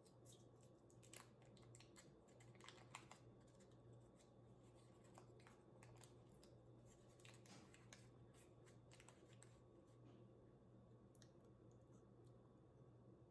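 Faint eating and food-handling sounds close to the microphone: a scatter of small crisp clicks and scratchy rustles, busiest in the first half, over a low steady hum.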